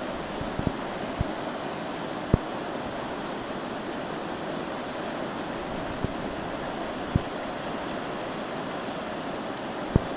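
Whitewater rapid rushing steadily, with a few short low thumps scattered through it.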